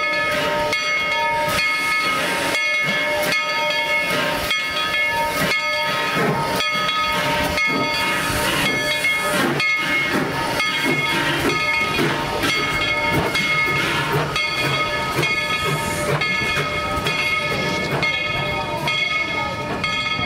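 A steam locomotive moving slowly, hissing steam, with repeated exhaust chuffs and clanks from the running gear. A steady high ringing tone carries on underneath, and the steam hiss grows louder about eight seconds in.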